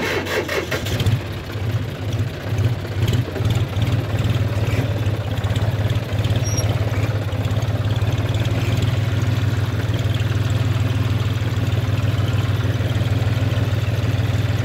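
John Deere 5050D tractor's three-cylinder diesel engine restarting after a stall: it catches right at the start, runs unevenly for a few seconds, then settles into a steady run.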